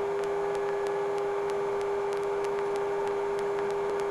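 Sikorsky S-58T turbine helicopter running, heard as a steady hum: one strong steady tone with fainter steady tones above it, over a hiss, with faint regular ticks about three times a second.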